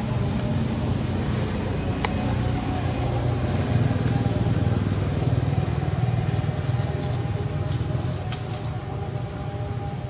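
Steady low engine hum, with a single sharp tick about two seconds in.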